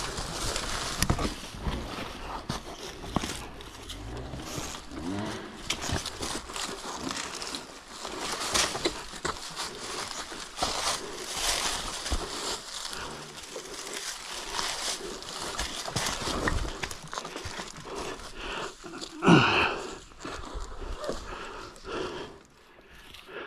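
A dirt bike being rolled slowly down a steep rocky slope with no engine heard: tyres and boots crunch through dry fallen leaves, with irregular knocks on rocks. Near the end there is one loud, sudden sound that falls in pitch.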